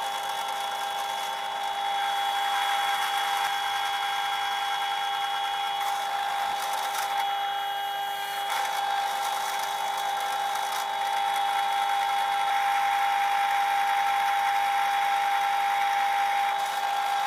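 Benchtop drill press running with a steady whine, its twist bit boring a hole through the steel tang of a machete blank forged from bearing steel.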